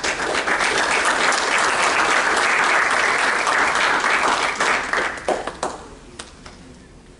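Audience applauding, thinning out to a few last claps about five to six seconds in.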